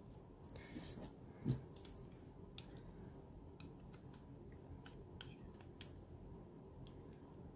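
Faint crinkling and small ticks of die-cut cardstock as the cut-out pieces are pushed free with fingers and a pointed pick tool. There is one soft thump about a second and a half in.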